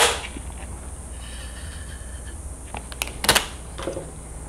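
Adhesive tape ripped off the roll in one short rasp a little over three seconds in, with a few light clicks of handling around it.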